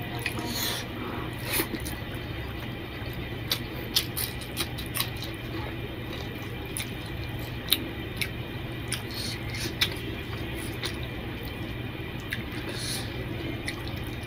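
Wet squelching of pulao rice and curry being mixed by hand on a plate, with scattered short, sharp wet clicks and smacks, over a steady low hum.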